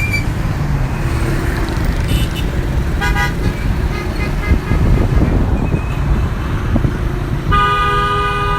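Busy city road traffic rumbling, with car horns honking: short toots about two and three seconds in and a long steady horn blast that starts near the end.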